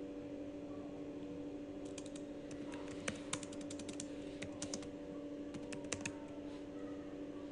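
Typing on a computer keyboard: an uneven run of key clicks from about two seconds in until near the end, over a steady low hum.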